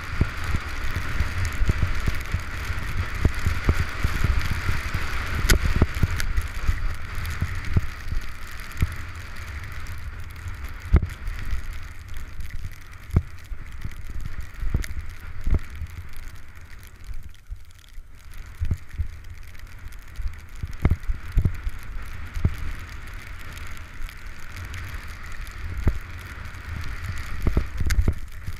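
Wind buffeting a helmet-mounted camera's microphone as a skier descends through deep powder, with the skis hissing through the snow and scattered knocks from the skier's movements. The noise dips briefly about two thirds of the way in.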